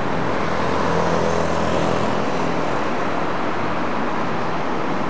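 Road traffic passing on a wet road: a steady hiss of tyres on wet asphalt, with a low engine hum that stops about two and a half seconds in.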